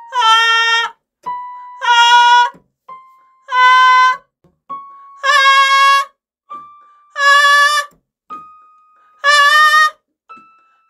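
A piano plays a single note and a singer answers it on a held vowel of just under a second, six times over, each pair a semitone higher: a vocal range exercise climbing from about A4 to D#5 into the singer's high register.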